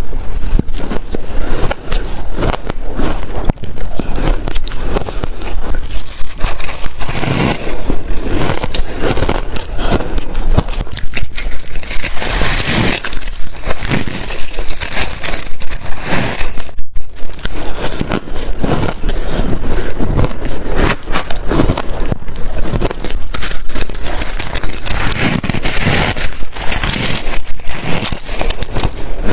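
Shaved ice being bitten and crunched close to the microphone, a dense run of loud crackling, scraping crunches with no pause longer than a moment.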